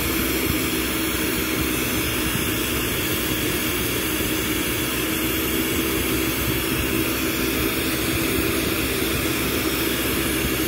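Glassblowing bench torch burning with a steady rushing roar, over a constant low hum.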